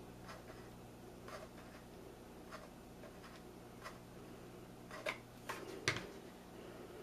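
Faint scattered clicks and light taps from handling a hot glue gun against a burlap-wrapped glass jar while laying down glue, with a couple of sharper knocks about five and six seconds in as the glue gun is set down upright.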